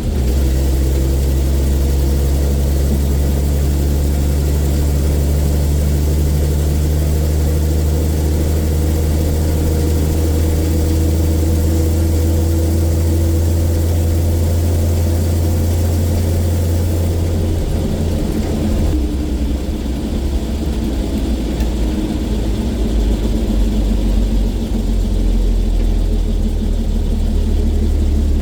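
Bedford RL truck's six-cylinder petrol engine running steadily under way; about two-thirds of the way through the engine note drops to a lower pitch.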